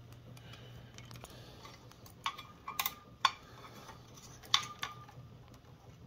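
Sparse small clicks and light metallic taps as hands handle the wiring and brass switch housing of a ceiling fan, a handful of sharper clicks between about two and five seconds in, some with a brief ring.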